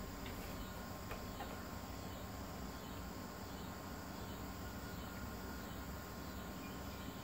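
Crickets chirping steadily in the background, a faint even outdoor insect chorus.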